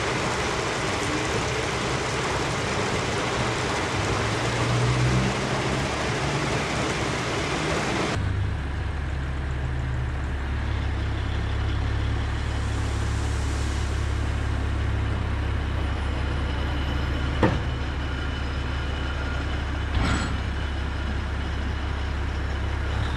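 Off-highway haul truck being loaded with gravel from an overhead bin: a loud, even rushing noise over the diesel engine. About eight seconds in this cuts off abruptly, leaving the truck's diesel engine running with a steady low drone as its bed tips and dumps the load, with two sharp knocks a few seconds apart later on.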